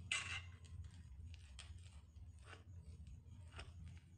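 Steel spoon stirring rice flour and water in a stainless steel bowl: faint, irregular scrapes and light clicks of the spoon against the bowl, with a slightly louder scrape at the very start. A low steady hum runs underneath.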